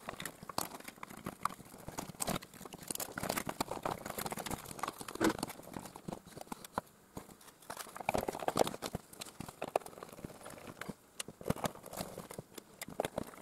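Plastic housing and internal parts of a small 12-volt car air compressor being handled and closed up: irregular clicks, knocks and rattles. Near the end a screwdriver drives screws into the case.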